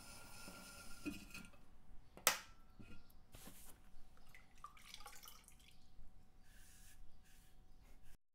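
Faint scattered clinks and taps, with one sharp ringing clink about two seconds in; the sound cuts off just before the end.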